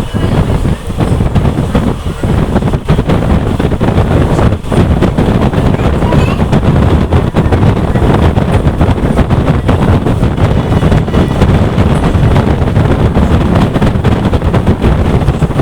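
Loud, steady running noise of a moving train heard from on board, with wind buffeting the microphone.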